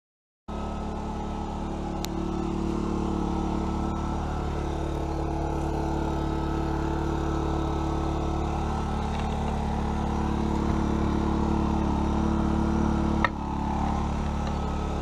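Small Sportsman inverter generator's engine running steadily with an even hum. About 13 seconds in, a sharp click, after which the hum drops slightly.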